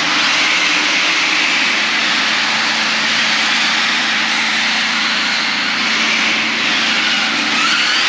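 Radio-controlled cars racing on concrete: a loud, steady whirring hiss of motors and tyres, with a rising whine near the end.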